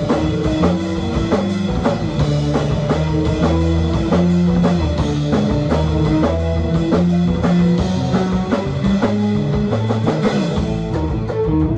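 Live rock band playing an instrumental passage: electric guitar and bass over a steady drum-kit beat, with no singing.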